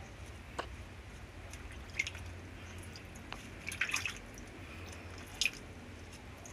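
Water dripping and splashing as a wet sponge is dipped into a shallow plastic tub of water and wiped over a baby monkey. There are a few single sharp drips and a quick cluster of splashes about four seconds in, over a low steady hum.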